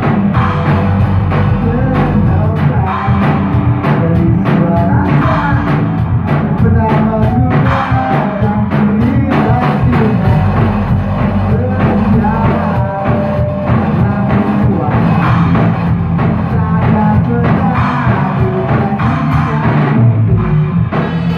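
A rock band playing live: a Pearl drum kit with steady beats and cymbal hits under distorted electric guitars, running continuously.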